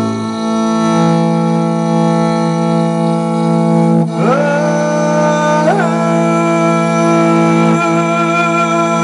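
Mongolian overtone singing (khöömei) over a bowed horsehead fiddle (morin khuur). A steady low drone runs throughout, and about four seconds in a high, whistle-like overtone melody enters above it, stepping and sliding between pitches.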